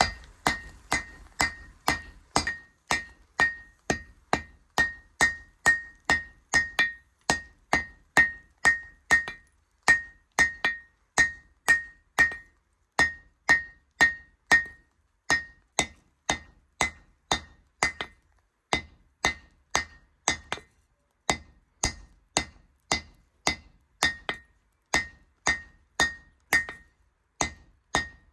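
Hand hammer forging steel on an anvil: steady blows about two to three a second, each with a bright ring, broken by a couple of short pauses.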